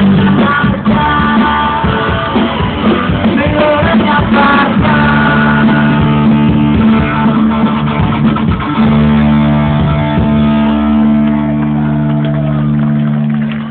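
Music with guitar and bass: busy, choppy playing at first, then from about five seconds in long sustained low notes held under the melody.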